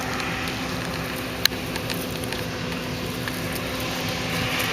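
Combine harvester running steadily through a soybean field: a continuous machine hum and drone, with one sharp click about a second and a half in.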